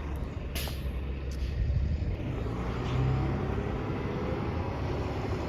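Transit bus engine running with a steady low rumble, with a short sharp hiss of air about half a second in and a faint rising whine near the end.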